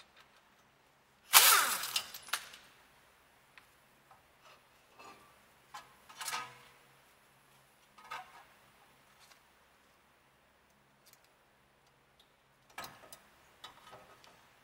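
Metal clanks and rattles from hand work on a car's disc brake caliper and tools: one loud clatter about a second and a half in, then scattered separate knocks and a short burst of rattling near the end.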